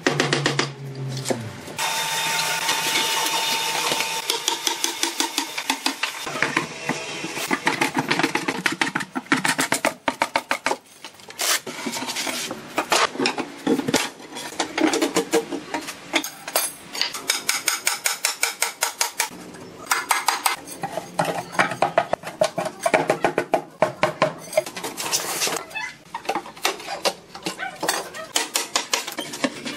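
Claw hammer knocking on wooden formwork boards to free them from a cast concrete countertop, with the boards clattering as they are pulled loose. The knocks come in quick runs throughout.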